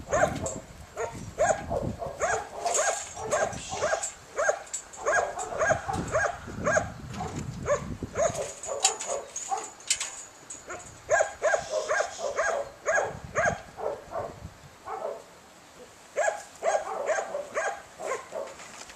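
Young border collie barking rapidly in quick runs of short barks, with a lull a little past halfway before a last run of barking.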